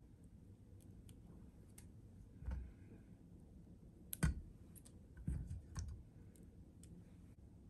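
Hands plucking the stems off cherry tomatoes over a stainless steel mesh colander: faint, irregular small clicks and soft knocks, the loudest a little past halfway.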